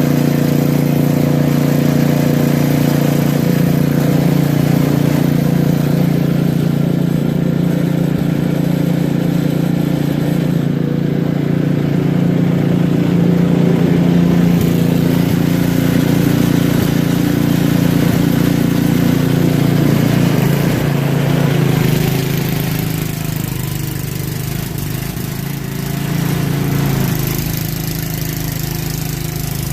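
Snowblower's small engine running steadily, a little quieter after about twenty seconds.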